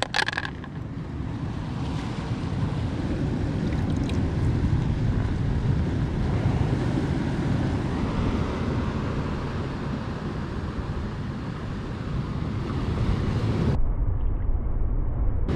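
Wind buffeting an action-camera microphone over the sea washing on the rocks: a steady low rumble and hiss. Near the end the upper hiss cuts out suddenly and only the low rumble carries on.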